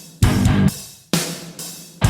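Heavy metal music: distorted electric guitar with drums playing a stop-start riff. Chords are struck together with the drums about once a second, each left to ring and fade before the next hit.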